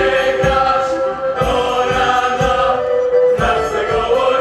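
Men's choir singing a Polish folk song in chorus with a folk band, over a steady low beat of about two to three thumps a second.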